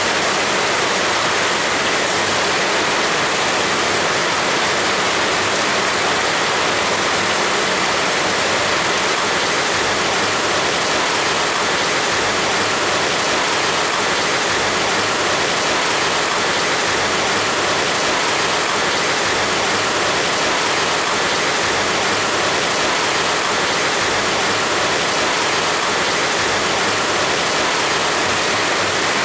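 Heavy rain falling steadily, a dense, even hiss with no distinct drops or thunder.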